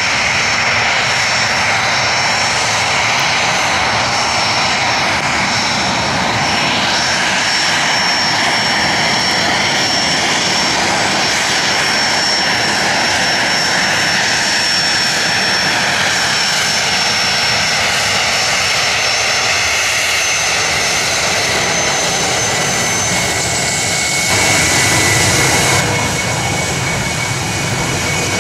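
Bombardier Challenger 300-series business jet taxiing, its two rear-mounted Honeywell HTF7000 turbofans running with a continuous rush and a thin high whine. Near the end, as the jet swings round to line up, the whine drops to a lower pitch and the sound briefly gets louder.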